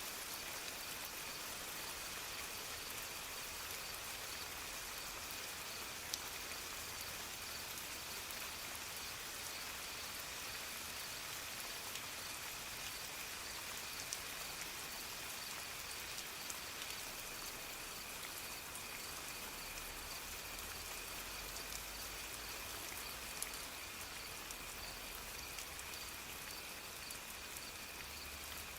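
Steady soft rain falling, with single drips ticking sharply on a surface now and then, and a faint steady high-pitched tone running underneath.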